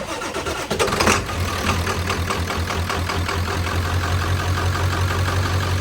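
Ford 7.3 Powerstroke V8 turbo-diesel cold starting: it cranks briefly, catches about a second in, then settles into a steady, even idle. This is a cold start after the glow plugs were cycled and with the block heater plugged in.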